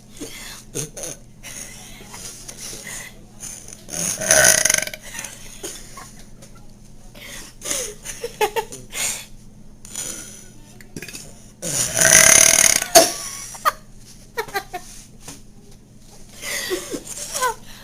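A girl burping loudly: a belch about four seconds in and a longer, louder one about twelve seconds in, with small throat and mouth noises between.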